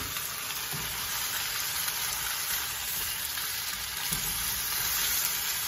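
Sliced chicken and onions sizzling steadily in hot oil in a wok, stirred with a silicone spatula.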